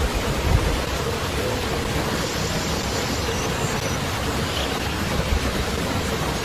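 Steady rushing noise, with low rumbles about half a second in and again near the end.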